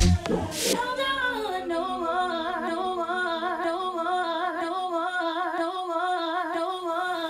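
Electronic dance music in a drumless breakdown: the kick drum stops at the start, and a long held vocal note with a steady vibrato carries on without a beat.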